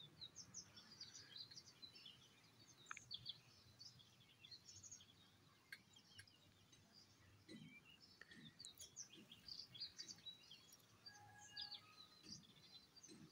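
Faint birds chirping in the background: many short, high calls scattered throughout. A few soft low knocks in the second half.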